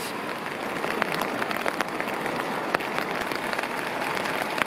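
Steady patter of rain: a dense, even crackle of many small drops.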